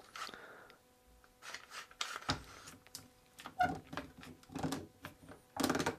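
Trigger-style bar clamp, set as a spreader, being pumped by hand: a run of irregular ratcheting clicks as the trigger is squeezed, forcing a tea-cart wheel's wooden joints apart.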